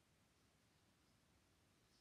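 Near silence: faint, even room tone.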